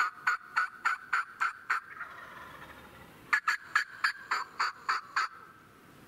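Turkey yelping: two runs of evenly spaced, sharp yelps, about three a second, with a pause of about a second and a half between them.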